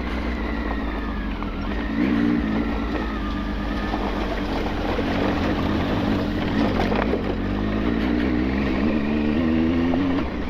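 Motorcycle engine running steadily under way on a rough, unpaved stretch, its pitch wavering slightly with the throttle, with a few knocks from bumps around the middle.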